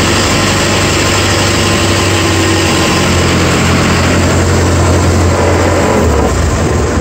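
Boat engine running steadily, loud and close, with a constant low hum.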